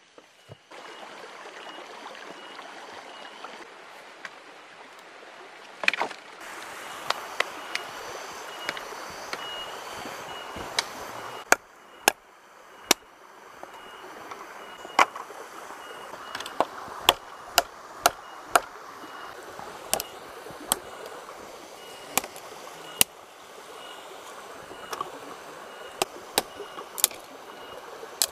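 Wood being chopped by hand: sharp, irregular strikes about once a second, starting about six seconds in, over the steady rush of a stream.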